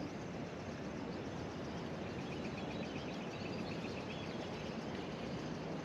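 Steady, faint outdoor background noise from the river, with a short run of faint bird chirps about two seconds in.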